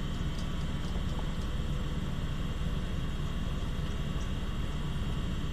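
Steady low hum of running computer hardware, with faint thin high tones over it.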